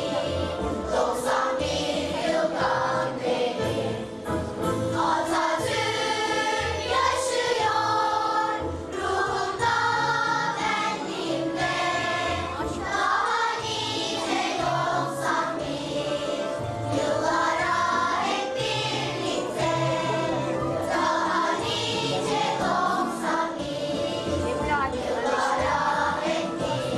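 A school choir singing a song in unison over a steady instrumental accompaniment with a repeating bass line.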